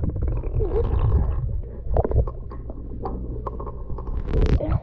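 Swimming pool water heard from a camera held underwater: a muffled low rumble with bubbling and gurgling clicks, and a louder rush of water near the end.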